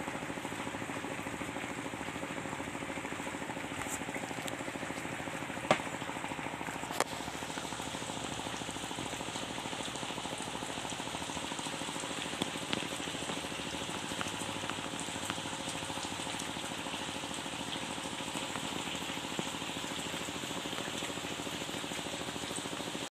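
Rain falling steadily, an even hiss of drops, with two sharp knocks about six and seven seconds in.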